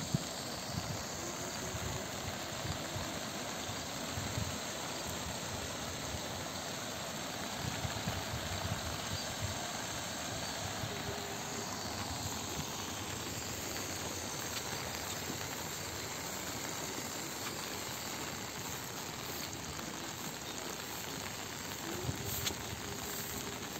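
Steady outdoor countryside ambience: an even hiss, with occasional soft low thumps.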